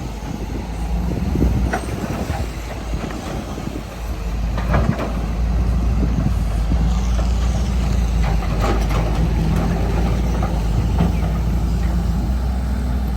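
Excavator's diesel engine running steadily under load, getting louder about four seconds in, with scattered short knocks and scrapes from the bucket working the soil.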